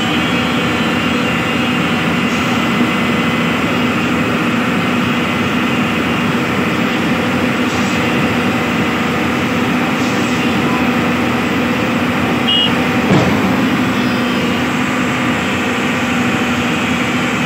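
Hydraulic excavator's diesel engine running steadily under working load, with a constant hum. There is a single short knock about thirteen seconds in.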